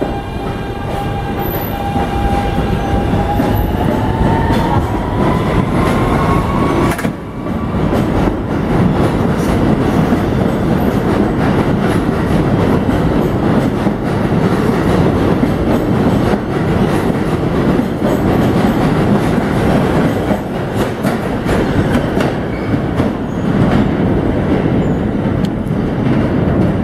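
New York City Subway train running past along the platform. A high electric motor whine rises in pitch over the first few seconds as the train gathers speed, under a steady rumble and clatter of steel wheels on the rails.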